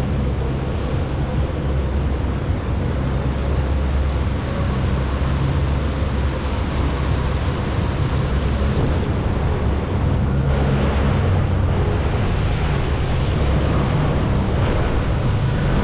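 Jet ski engine running steadily while underway, with water rushing around the hull; the high rushing hiss eases about nine seconds in.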